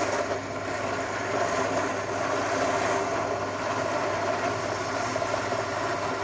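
Bench drill press running a rotary brush wheel, with a rusty engine part pressed against it: a steady motor hum under the scrubbing of metal being cleaned of rust.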